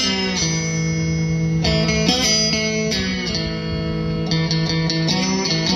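Amplified cigar box guitar playing an instrumental passage of held notes that move between pitches, some with short slides.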